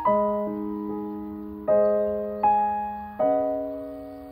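Slow, gentle piano background music: notes and chords struck every second or so, each ringing on and fading away.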